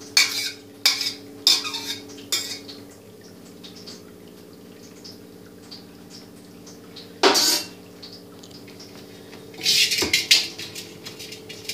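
Steel kitchen utensils clinking and knocking: four sharp clinks in the first two and a half seconds, another clatter about seven seconds in, and more rattling handling noise near the end.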